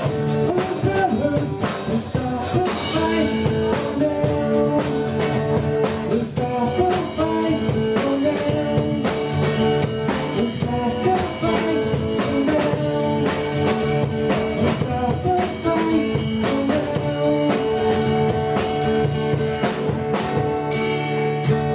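Two acoustic guitars playing together live: steady rhythmic strumming with a melody line over it.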